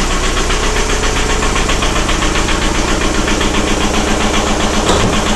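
1999.5 Volkswagen Jetta's 1.9 L ALH TDI four-cylinder turbodiesel running with a steady, rhythmic knock. The owner says the knocking just started, along with the engine shaking.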